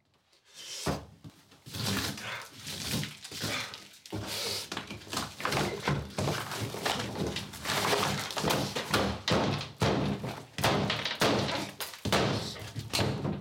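Repeated heavy thuds, cracks and crunching as a tabletop model of thin board panels is smashed and torn apart by hand, pieces snapping and scraping across the table. It starts about a second in and keeps going, over a low steady hum.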